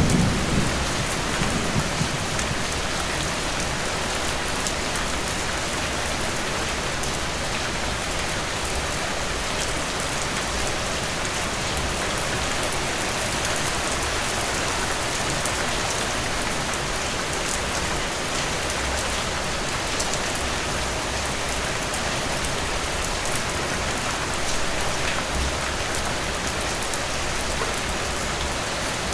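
Heavy rain falling steadily, an even hiss of drops. The last of a low thunder rumble dies away in the first couple of seconds.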